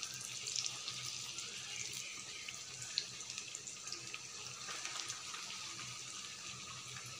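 Marinated chicken tikka pieces deep-frying in oil in a kadai, a steady sizzle with small scattered crackles. The oil is kept only moderately hot so the meat cooks through.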